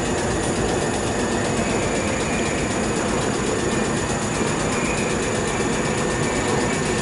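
Electric multiple unit standing at the platform with its doors open, its onboard equipment giving a steady hum and hiss with a faint high whine.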